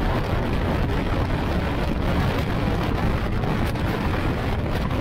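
Steady wind buffeting on the microphone of an open-cockpit car at speed, with the car's Yamaha R1 four-cylinder motorcycle engine running underneath.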